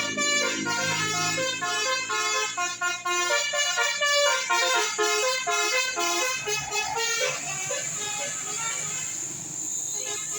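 Indonesian bus 'telolet' horn: a set of air horns playing a quick melody of short, stepping notes, stopping about seven seconds in, after which only steady road noise remains.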